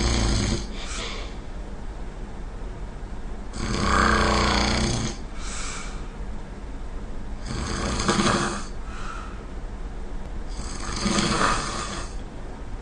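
A person snoring heavily in a steady rhythm: three loud, rasping snores about every three and a half to four seconds, each followed by a shorter, fainter breath sound.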